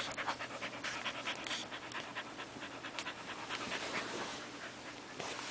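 A dog panting close to the microphone, a quick run of short breaths, loudest near the start.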